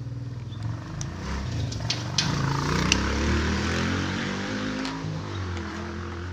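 A motor vehicle's engine passing by, its drone growing louder and then fading away, with a couple of light clicks about two and three seconds in.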